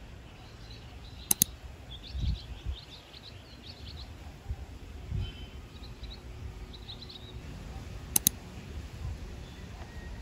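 Outdoor morning ambience: small birds chirping in short bursts over a low rumble. Two sharp double clicks come about a second and a half in and again near the end.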